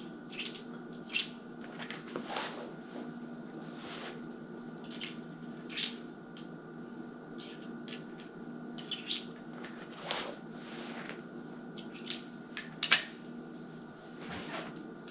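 Irregular metallic clicks and rattles of .38 Special cartridges being fished out loose and pushed one at a time into a five-shot revolver's cylinder during a reload. A few sharper clicks come near the end.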